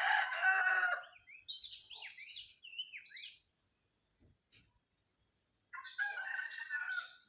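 Rooster crowing twice: one crow trails off about a second in and another comes near the end. Between them a small bird chirps a few short notes.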